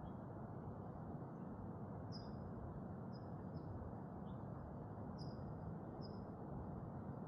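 Morning outdoor ambience: a steady low background hiss with a small bird giving short, high, falling chirps about once a second.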